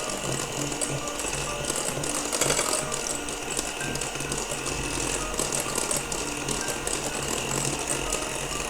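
Electric mixer running steadily at high speed, whisking egg whites and hot sugar syrup into Italian meringue.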